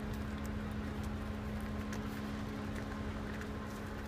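A stationary car's engine idling with a steady hum, while bison hooves give scattered light clicks on the asphalt road as the animals walk past.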